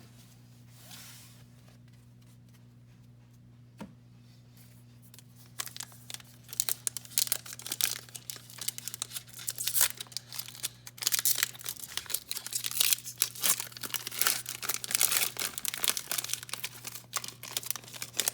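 Foil wrapper of an Upper Deck hockey card pack crinkling and tearing as it is opened. Quiet at first with a few faint clicks, the crackling starts about five seconds in and goes on densely.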